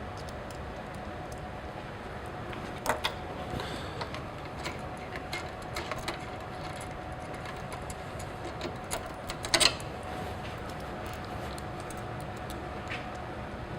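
Scattered metallic clinks and taps of wrenches, nuts, bolts and washers as the bolted connections on a rectifier's copper bus bars are undone, the loudest clatter about two-thirds of the way through. A faint steady hum lies underneath.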